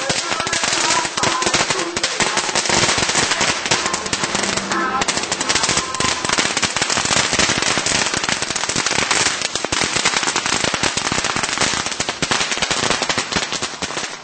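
A long string of firecrackers going off, a rapid, continuous crackle of small bangs.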